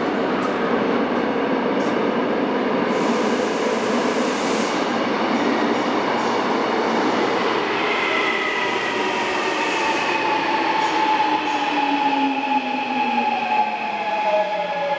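Gwangju Metro Line 1 electric train running into an underground station: a growing rush of wheels on rail, joined about halfway by a whine of several tones that falls in pitch as the train brakes to a stop.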